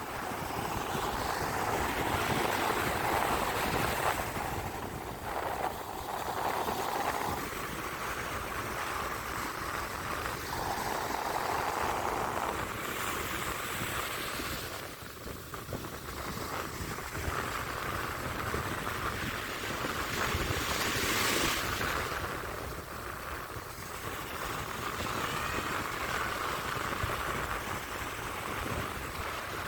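Sea surf breaking and washing up on the beach in waves that swell and ebb, with wind rumbling on the microphone; louder washes of surf come about halfway through and again about two-thirds through.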